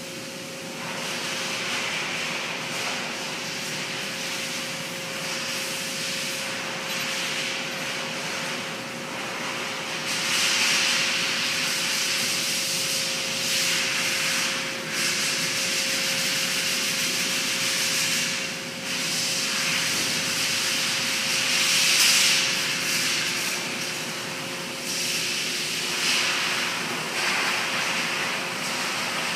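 Rubber inner tube rubbing and scuffing against the inside of a motorcycle tyre as it is worked in by hand, a scratchy noise that swells and eases in irregular strokes. A steady faint hum runs underneath.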